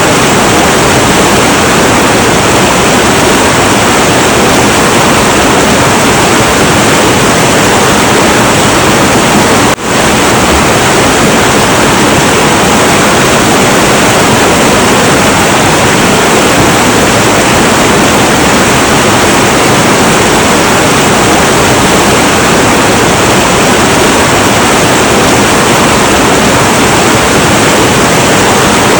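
Heavy, turbulent river water flowing: a steady, loud rush with no let-up, apart from a momentary drop in level about ten seconds in.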